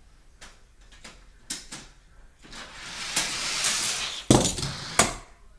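Die-cast toy car running down a plastic Hot Wheels track with a few light clicks, then a rising rattling rush, then two sharp clattering knocks under a second apart as it comes off the track.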